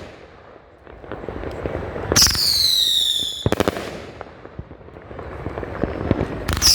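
Winda 'Rio' 500-gram fireworks cake firing. About two seconds in, a whistling shot shrieks and falls in pitch for about a second, then a quick cluster of sharp bangs. Crackling and popping fill the gaps, and another whistle starts at the very end.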